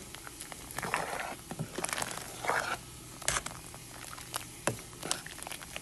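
A spoon stirring bow tie pasta in a pot of boiling water, with scattered clinks and scrapes against the pot.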